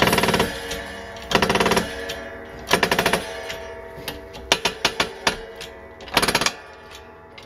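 A ball bearing being pressed onto the transmission input (clutch) shaft of a Honda CL160 engine in a shop press. It gives about five short bursts of rapid, creaking clicks, each well under a second and spaced a second or two apart, until the bearing seats fully on the shaft.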